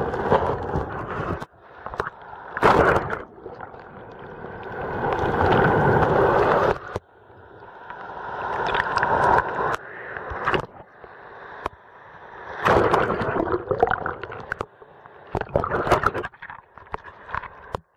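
Shallow beach surf heard through a waterproof camera dipped in and out of the water: muffled underwater gurgling and sloshing alternating with splashing breaking waves. The sound swells up over a few seconds and drops off suddenly several times.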